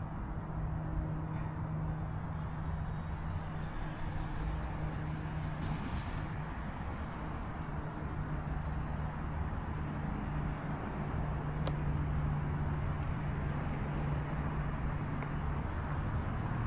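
Wind rumbling on the microphone, with a steady low drone that drops out for a few seconds around the middle and comes back.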